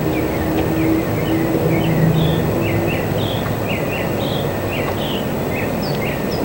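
A small bird chirping steadily, short notes about three a second, over a constant low hum and outdoor background noise.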